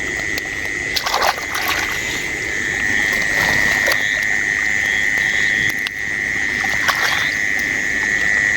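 Night chorus of frogs and insects, a steady high-pitched drone, with a few short knocks or splashes from the water about a second in, near the middle and near the end.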